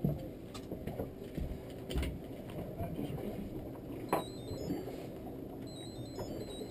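A few sharp knocks and clicks on a boat deck as a hooked striped bass is unhooked, over a steady low rumble.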